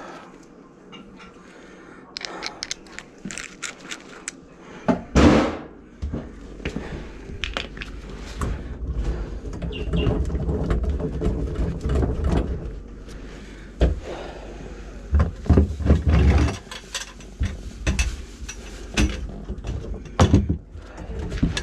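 Handling noise from work at a kitchen sink and the cabinet beneath it: a string of knocks, clatters and scrapes, with a loud knock about five seconds in and low rumbling movement noise after it.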